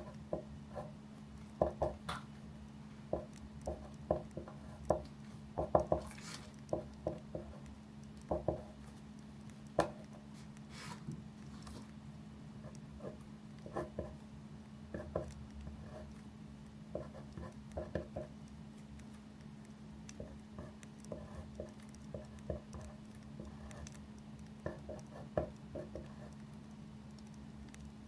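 Campfire crackling: irregular small pops and clicks, a few sharper ones, over a steady low hum.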